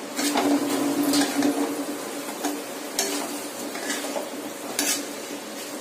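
A spatula scraping and knocking against a steel kadai as thick chicken masala is stirred. There is a busy run of scrapes over the first couple of seconds, then a few separate sharp clicks.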